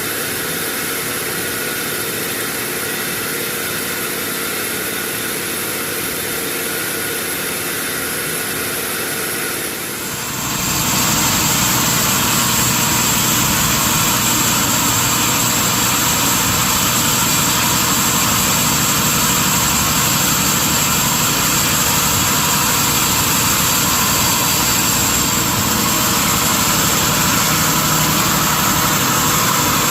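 Sawmill machinery running steadily with a constant hum and whine. About a third of the way in it grows louder and fuller, with a steady high-pitched whine.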